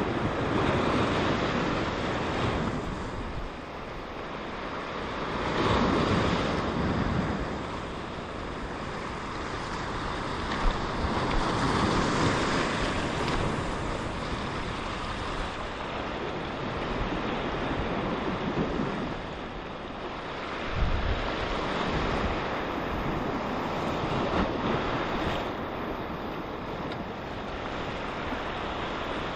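Surf washing in over a rocky shoreline, swelling and ebbing with each wave every several seconds, with wind rumbling on the microphone. Two brief knocks stand out, one about a third of the way in and one about two thirds in.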